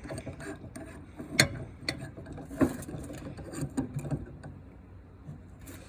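Scattered metallic clicks and knocks as a drill press chuck is handled and set in a vise, the sharpest knock about a second and a half in.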